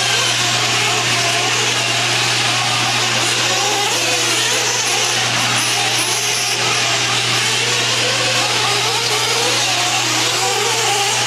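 Several 1/8-scale nitro truggy engines racing around the track, a continuous high-pitched buzz whose pitch keeps rising and falling as they throttle up and back off. A steady low hum sits beneath.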